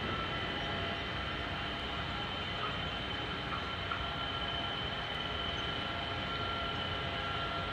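Steady drone of ship's engines and machinery on the water, with constant high-pitched whines over a low rumble.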